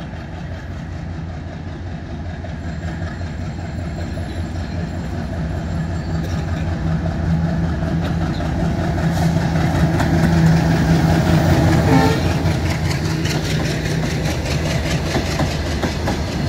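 Diesel locomotive hauling a loaded goods train approaches and passes, its engine hum growing louder toward the middle. In the last few seconds the wagons' wheels clatter over the rail joints as the engine sound fades.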